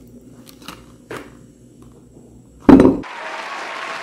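Faint crackling ticks of a thin plastic Easter-egg mold being flexed off a chocolate shell. About three seconds in comes a sudden loud thump, then a steady applause-like hiss.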